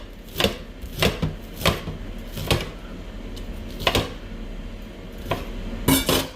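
Kitchen knife chopping vegetables on a chopping board: about ten sharp, unevenly spaced strikes of the blade on the board.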